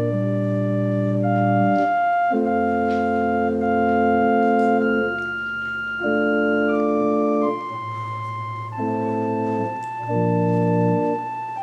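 Organ playing a slow progression of held chords over a sustained bass line, each chord lasting about one to two seconds.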